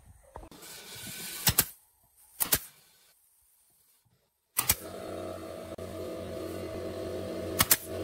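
Pneumatic nail gun driving nails into pine boards: four sharp shots, each a quick double crack, spaced about one to three seconds apart. A steady machine hum starts about halfway through.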